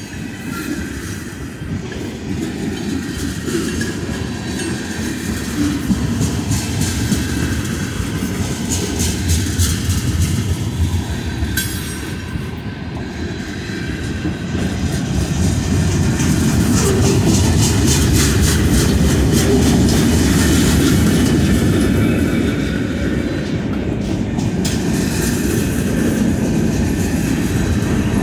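Freight cars of a CSX train rolling past, tank cars giving way to boxcars and empty centerbeam flatcars: a steady rumble of steel wheels on rail with clickety-clack over the joints. It grows louder a little past halfway.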